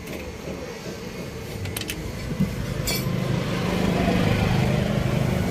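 A few light metal clinks, then a motor vehicle's engine running, growing louder from about two seconds in.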